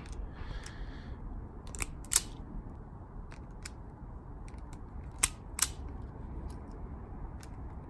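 Self-adjusting wire stripper snapping shut on a thin wire as it strips the insulation. There are several sharp clicks, the loudest coming in pairs about a third of a second apart, around two seconds in and again at about five and a half seconds.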